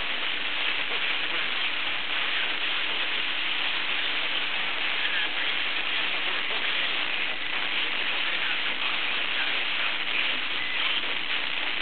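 Sony XDR-F1HD FM tuner on 103.6 MHz putting out steady FM static hiss, with a faint steady hum beneath it: no clear station is coming through on the frequency.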